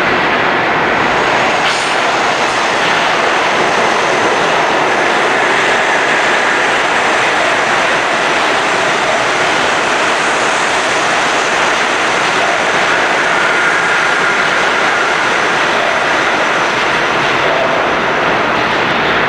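New York City subway train running past the platform: a loud, steady noise of wheels on rail that holds throughout.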